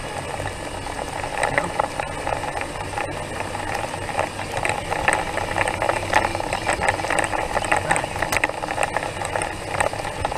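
Steady rattling road noise, dense with small clicks and knocks, from a camera mounted low on a slowly moving vehicle rolling over a concrete street.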